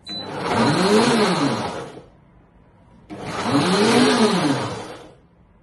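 Optimum G2.6 high-speed blender running its smoothie program on a thick shake: the motor speeds up and winds back down twice, with a pause of about a second between.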